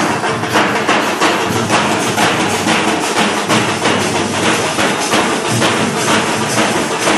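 A group of drummers playing chenda-type cylindrical procession drums in a fast, dense, steady rhythm, with strong strokes about three or four times a second.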